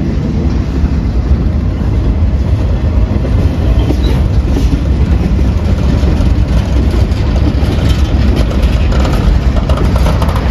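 Freight cars rolling past close by: a loud, steady rumble of steel wheels on the rails, with some clicking of wheels over the track near the end.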